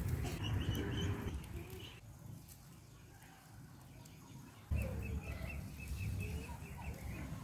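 Birds calling: runs of short, evenly repeated high chirps and some lower cooing calls, over a low rumble that fades out and comes back suddenly partway through.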